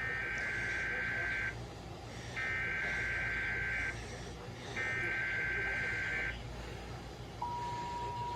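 NOAA Weather Radio Emergency Alert System alert opening: three bursts of the SAME digital header, each a harsh warbling data tone about a second and a half long with short gaps between, then the steady single-pitch 1050 Hz warning alarm tone starting near the end. This sequence marks the start of a broadcast severe thunderstorm watch.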